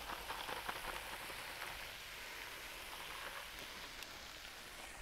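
Diced chicken and onion sizzling in oil in a hot stir-fry pan, a steady fine crackle, as shredded stir-fry vegetables are tipped in.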